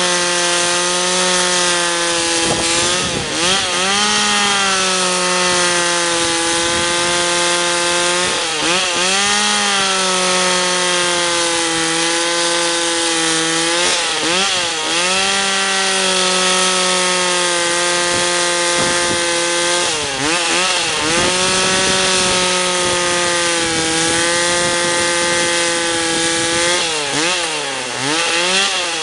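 Small chainsaw running at high revs while cutting wood for a finger joint. Its steady engine pitch sags and recovers about five times, roughly every six seconds, as the chain bites into the wood or the throttle eases.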